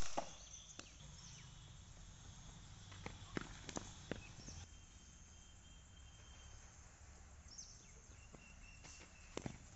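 Quiet outdoor ambience in a cricket practice net, with faint high chirps and a few light taps, then right at the end a sharp crack of a cricket bat striking the ball.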